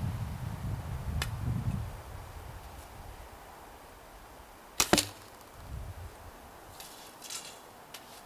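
A single shot from the Leopard bow about five seconds in: a sharp double snap as the string is released and the arrow is sent. A low rumble comes first, and faint rustling follows.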